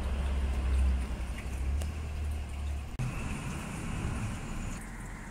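A low rumble with a few faint clicks; the background noise changes abruptly about three seconds in.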